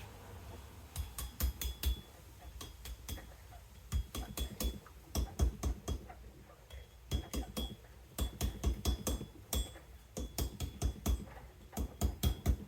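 Quick series of mallet taps on a twisted copper-wire tensor ring, knocking it back into shape after soldering, in clusters of several blows a second. Some blows leave a faint high metallic ring.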